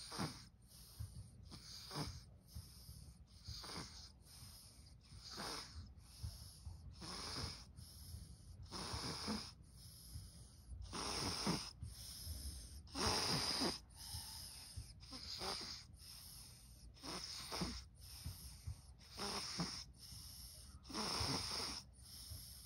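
Sleeping infant breathing noisily with a pacifier in its mouth, one wheezy breath about every second and a half to two seconds.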